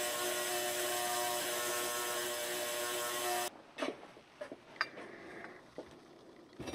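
Ultrasonic parts cleaner running: a steady buzzing hum with many fixed tones over a hiss. It stops abruptly about three and a half seconds in, and a few light metallic clinks follow as the stainless wire basket of parts is set down and handled.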